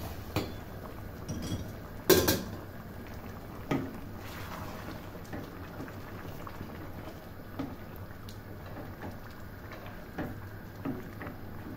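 Cabbage and mince in a stainless-steel pot simmering with a steady hiss after hot water is added, while a wooden spoon stirs it and knocks against the pot now and then. The loudest knock comes about two seconds in.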